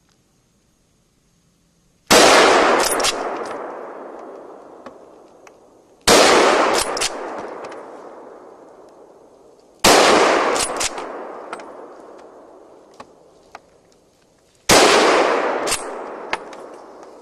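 Hunting rifle with a telescopic sight fired four times, roughly four seconds apart, each shot ringing out in a long echo that fades over a few seconds.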